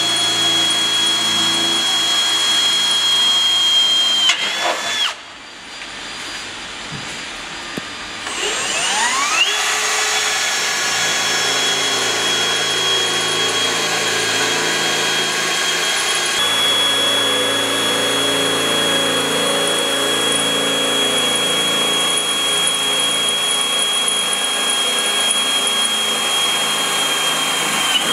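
Cordless drill running at speed, drilling into the metal floor pan of a van from underneath: a steady high whine. It winds down about five seconds in, stops for about three seconds, then spins back up and runs steadily until it winds down again just before the end.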